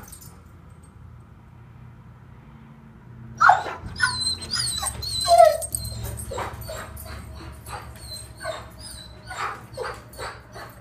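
Boxer dog howling and whining with a high, wavering pitch, starting about three seconds in, then breaking into a run of short yelps. The howling comes from a dog left alone.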